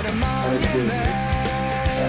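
Rock music with a steady drum beat and held melodic notes.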